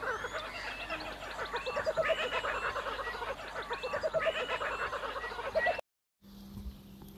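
A dense chorus of animal calls: rapid trains of short pulsed notes, repeating over and over, which cuts off suddenly near the end. After the cut there is faint outdoor background with a low steady hum.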